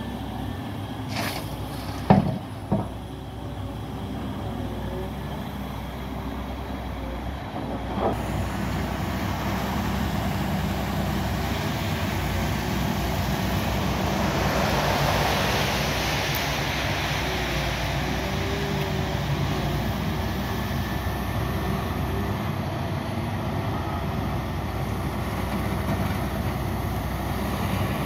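Volvo excavator's diesel engine running steadily, with a few sharp knocks in the first few seconds. The noise swells and falls away again near the middle.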